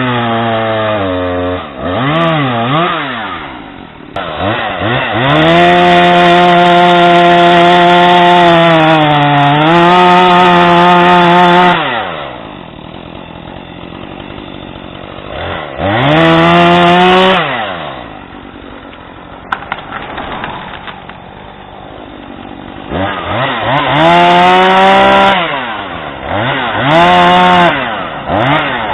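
Husqvarna 440 X-Torq two-stroke chainsaw engine revving up and dropping back to idle several times. In the middle it is held at high revs for about six seconds, with a brief dip in pitch, before falling back to idle. Near the end come a series of quick throttle blips.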